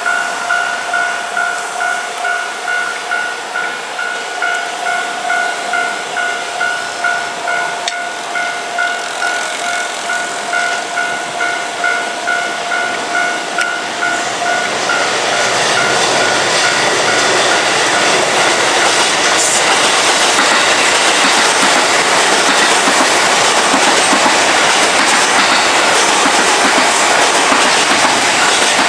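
Japanese level-crossing alarm ringing in a steady electronic ding-ding pulse, about one and a half strikes a second. About halfway through, a Keikyu Main Line electric train passes over the crossing and its running noise becomes the loudest sound, with the alarm still ringing underneath.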